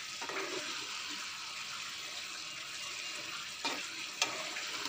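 Egg curry simmering and sizzling in a kadai on a gas stove: a steady hiss, with two short knocks near the end.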